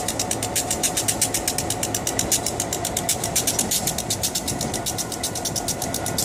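Diesel locomotive idling while it is turned on a turntable, with a fast, even pulsing about eight times a second over a steady low hum.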